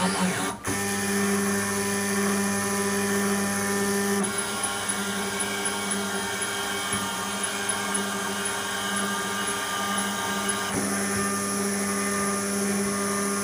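Home-built CNC router spindle driven by a brushless DC RC airplane motor, running steadily with an even whine of several steady tones. The sound drops out briefly just after the start and shifts slightly in pitch about 4 and 11 seconds in.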